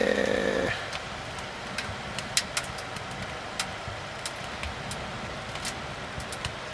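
Wood fire crackling inside a POMOLY Dweller Max 2.0 wood stove, with irregular sharp pops over a steady hiss as a large freshly loaded split log burns; the loudest pop comes about two and a half seconds in.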